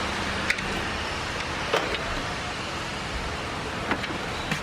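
Elevator running: a steady mechanical rumble and hiss, with four short sharp clicks or knocks spread through it.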